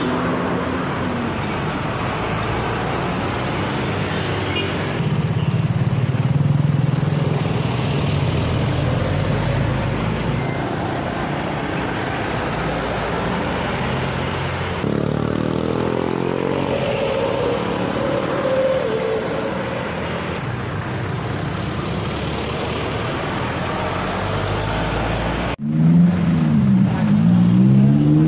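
Truck engines running as trucks drive past on a road, over general road traffic. Near the end an engine's pitch rises and falls.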